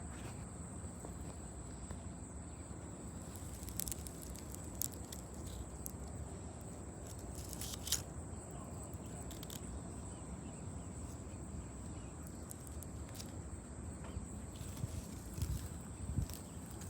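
Outdoor ambience: a steady low rumble, a thin steady high-pitched tone, and scattered sharp clicks and taps, the loudest just before eight seconds and a cluster near the end.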